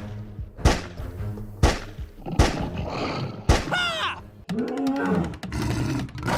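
Dramatic soundtrack music with heavy booming hits about once a second over a low steady drone, followed a little past the middle by short gliding sound effects that sweep down and up in pitch.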